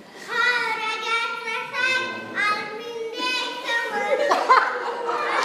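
A young child's voice reciting lines on stage in a hall, in drawn-out, sing-song phrases. Near the end other voices and noise from the room rise under it.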